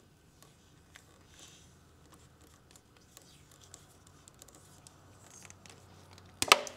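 Electrical tape being wrapped by hand around a spark plug wire: faint rustling and small ticks, then one short, loud crack near the end as the tape is parted from the roll.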